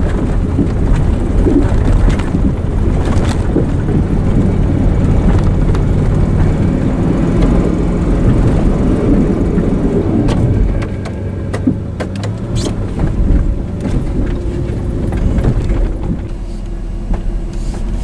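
Pickup plow truck's engine running under load as the blade pushes through deep drifted snow, a little quieter from about halfway through, with a few short knocks.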